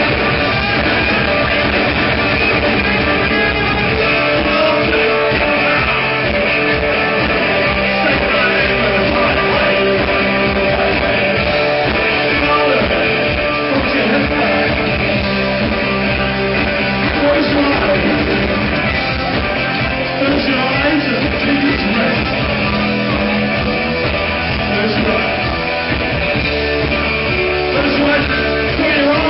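Live rock band playing loudly, with electric guitars and singing, heard from within the audience.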